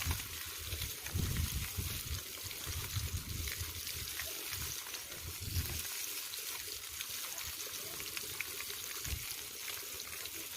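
Floured fish frying in hot oil in a pan over a wood fire: a steady sizzle with fine crackles, with some low bumps during the first half.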